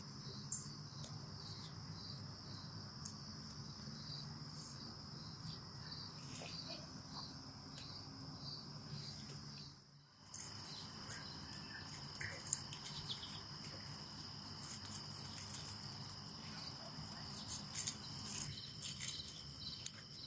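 Crickets trilling steadily in a high, continuous tone, dropping out briefly about halfway through. Light rustling and small clicks of tomato vines being handled come through in the second half.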